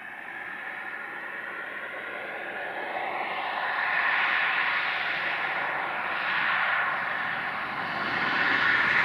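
Two 060-DA (LDE2100) diesel-electric locomotives with Sulzer engines, heading a freight train, running as a steady engine drone that grows louder as the train approaches.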